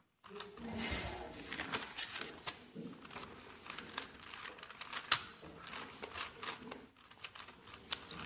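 Plastic 4x4 Rubik's cube being turned by hand, its layers clicking and clacking in quick, irregular runs, with one sharper click about five seconds in.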